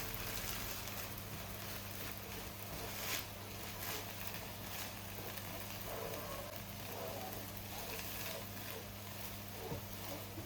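Pancake frying in oil in a hot pan, a faint steady sizzle over a low hum, with a few light clicks.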